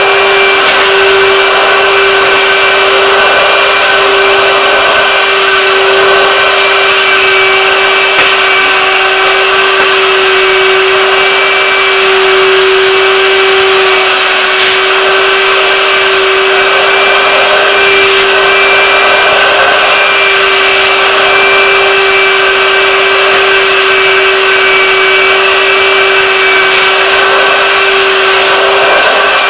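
Carpet-cleaning extraction machine's vacuum running steadily with a constant whine, as the extraction wand is drawn across wet carpet.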